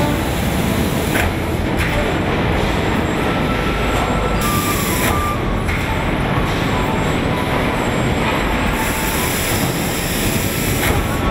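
Steady loud running noise of a tandem stamping press line, with two hissing bursts a few seconds in and near the end, and brief thin squeals.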